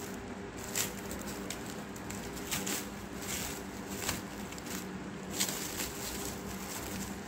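Plastic cling film crinkling and rustling in irregular crackles as it is pulled open and peeled off a frozen food wrapped around wooden skewers.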